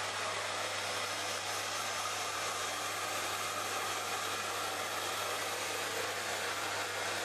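Handheld hair dryer running steadily while it is worked over a wet cat's fur: an even rushing hiss of blown air.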